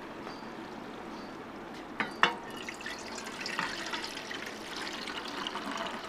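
Soaking water being poured off soaked basmati rice into an aluminium pot, a steady splashing pour that starts about two and a half seconds in. Just before it, two sharp knocks.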